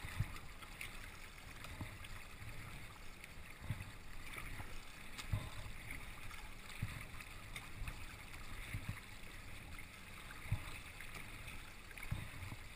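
Kayak paddling: water gurgling and lapping against the hull, with a low dull thump about every one and a half to two seconds as the paddle strokes.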